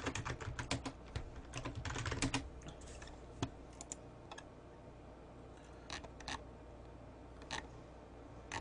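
Typing on a computer keyboard: a quick run of keystrokes for about two and a half seconds, then a few scattered single clicks.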